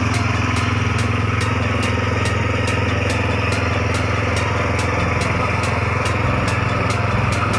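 An engine running steadily at an even speed, with a light regular tick about three times a second.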